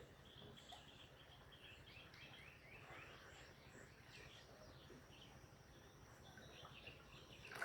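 Faint bird calls: a quick series of short falling chirps in the middle seconds, over a steady low hum.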